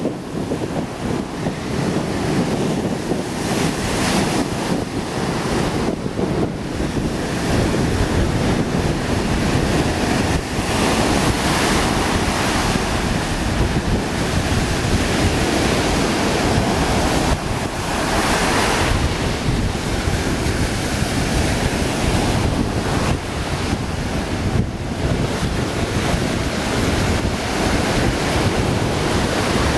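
Strong wind buffeting the microphone in gusts over the steady rush of breaking surf.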